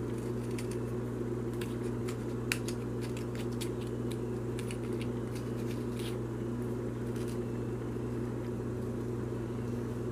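Titanium Olight S1 Baton flashlight's tail cap being twisted on its threads, giving scattered scratchy clicks that stop about seven seconds in: the threads are grainy rather than smooth. A steady low hum runs underneath.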